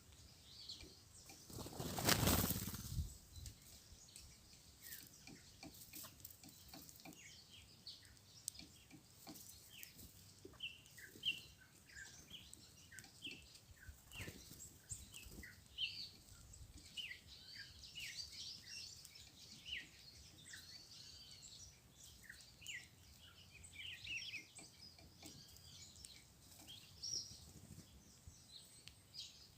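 A group of small songbirds, red-cowled cardinals among them, giving many short, high chirps. A loud flutter of wings comes about two seconds in.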